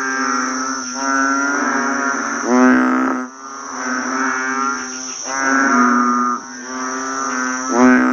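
Frogs croaking in a chorus of repeated low, pitched calls, each lasting a second or two, some starting with a quick upward swoop. A steady high-pitched insect chorus runs behind them.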